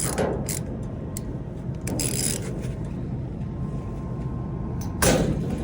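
A socket wrench with an extension working the flame rod fitting: three brief metallic scrapes and clinks, near the start, about two seconds in and about five seconds in, over a steady low rumble.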